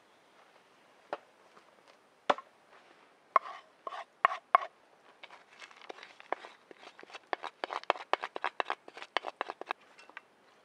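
A wooden spoon knocking and scraping as dry grain is scooped from a wooden bowl into a metal frying pan and stirred. A few sharp knocks come a bit over three seconds in, then a quick run of clicks and scrapes, about five a second, that stops shortly before the end.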